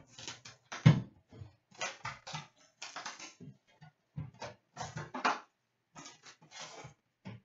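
Hockey card box and foil packs being handled and opened: a run of irregular rustles, crinkles and rips of paper, cardboard and foil, with a few sharper handling knocks.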